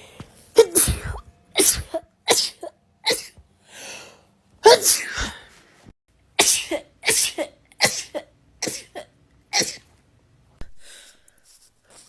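A woman sneezing over and over in an allergic sneezing fit: about ten loud sneezes roughly a second apart, stopping about ten seconds in.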